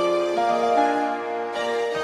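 Slow movement of a piano concerto sequenced on an Atari computer with Notator/Creator software and played by synthesized orchestral instruments. Sustained chords change about every half second, with a new chord near the end.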